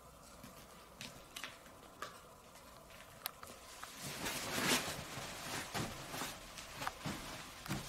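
A few small clicks and taps as a leather shoe's strap is fastened, then from about four seconds in a louder rustling of bedsheets and clothing as a person shifts and moves about on a bed.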